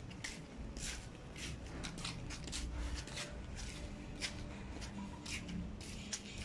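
Footsteps of people walking in sandals on a concrete road: a quick, irregular run of light scuffs and clicks over a faint low hum.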